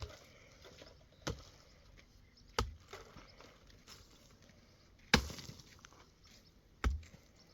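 Four sharp single strikes at uneven spacing, one to two and a half seconds apart, like blows of a tool on wood or stone.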